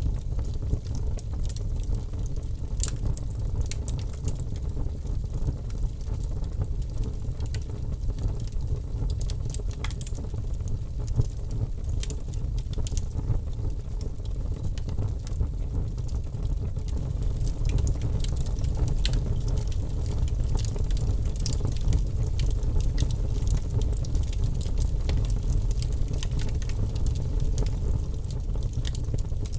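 Wood fire crackling, with many sharp irregular pops and snaps over a steady low rumble.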